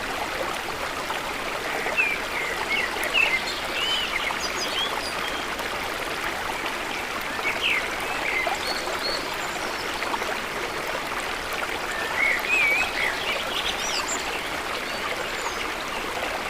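Steady rush of running water from a stream or waterfall, with small birds chirping in short, quick phrases over it. The birds are busiest about two to three seconds in, again around seven to eight seconds, and again around twelve to thirteen seconds.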